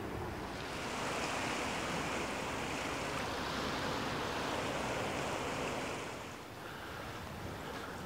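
A steady rushing noise over a low rumble, swelling about half a second in and dying down about six seconds in.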